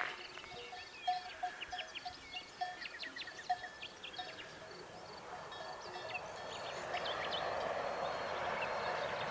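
Birds chirping and twittering in quick short calls, over a short note repeated every half second or so. About halfway through, a steady rushing noise swells up and stays to the end.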